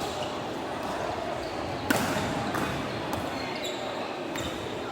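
A single sharp volleyball impact about two seconds in, over the steady murmur of players and onlookers in a gym hall, with a few short high squeaks from shoes on the court floor.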